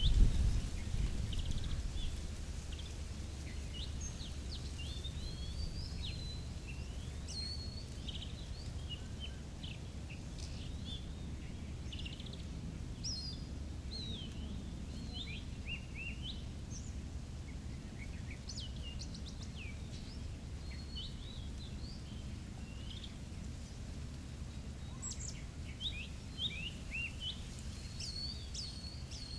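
Wild birds calling in short chirps and whistles, many calls scattered throughout, over a steady low rumble that is louder in the first couple of seconds.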